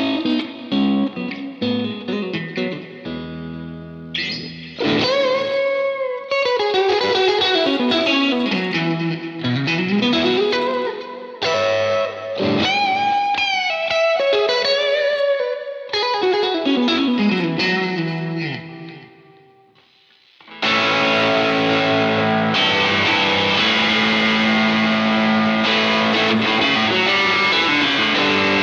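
Electric guitar played through a UAFX Enigmatic amp pedal with effects: single-note lines with bends and slides that die away about two-thirds of the way through. Then a fuller, more overdriven passage of sustained chords starts.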